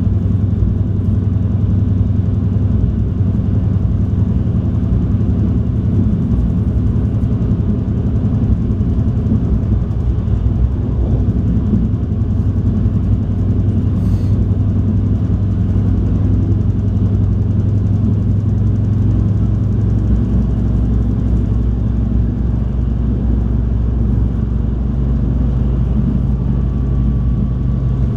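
Steady low rumble inside a moving Stadler GTW diesel light rail car: the underfloor diesel engine and the wheels on the rails. The engine note shifts lower about twenty seconds in.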